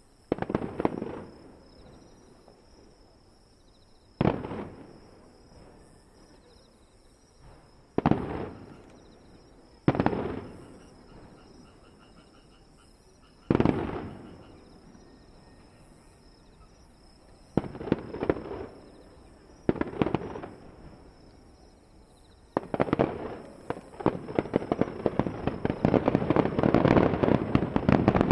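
Aerial fireworks shells bursting one at a time every two to four seconds, each a sharp boom with a rolling echo that dies away over a second or two. About 22 seconds in, they give way to a dense, continuous volley of crackling bursts.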